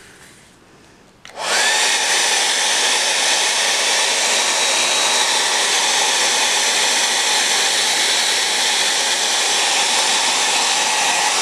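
Revlon hair dryer switched on about a second in, with a short rising whine as its motor spins up, then running steadily at full blast, blowing hot air onto a wax-paper-wrapped candle to melt its wax.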